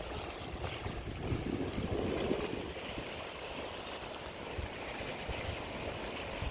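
Small sea waves washing and lapping against rocks along the shore, a steady watery hiss, with uneven low rumbles of wind on the microphone.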